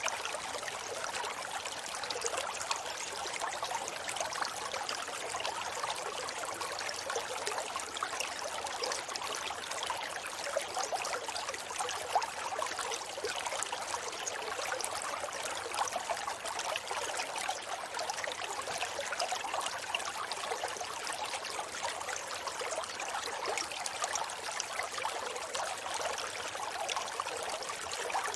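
Forest river flowing steadily: a continuous rushing and trickling of water over rocks, mostly in the mid and high range with little low rumble.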